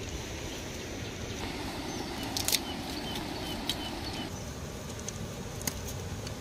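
Steady rushing outdoor background noise, with a few sharp clicks, the loudest about two and a half seconds in, and a handful of short high chirps just after it.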